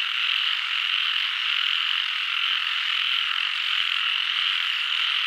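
Frogs calling in a dense, steady chorus, a continuous high-pitched din with no separate croaks standing out.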